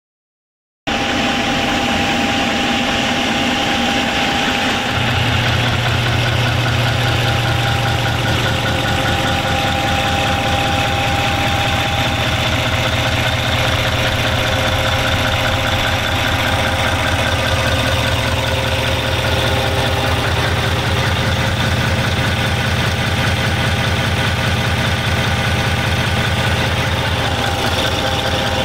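MTU 16V2000 M96L V16 marine diesel engine idling steadily, with a fast, even low throb that grows stronger about five seconds in.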